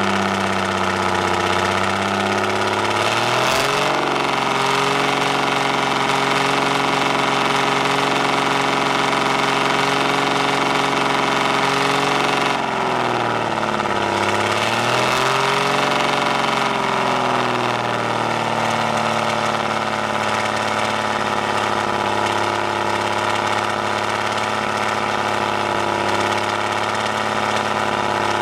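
Straight-piped Detroit Diesel 6-71 two-stroke diesel in a vintage Crown Coach school bus, heard at its exhaust pipe. It idles, is raised to a higher steady speed about three seconds in and held there, drops back around twelve seconds in, revs up briefly once more, and settles back to idle.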